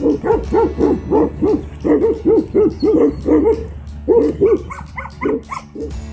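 A dog barking in a fast, steady run of about three barks a second, with a short pause about three and a half seconds in, then a few more barks before it stops.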